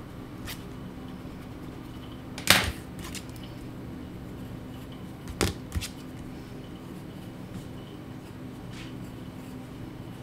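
A few sharp knocks from things being handled on a drawing desk: the loudest about two and a half seconds in, two more close together around five and a half seconds, with lighter ticks between, over a steady low hum.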